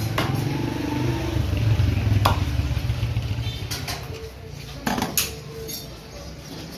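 A low engine rumble that fades out about three and a half seconds in, with a few sharp knocks of a butcher's cleaver striking a wooden chopping block, the loudest two close together about five seconds in.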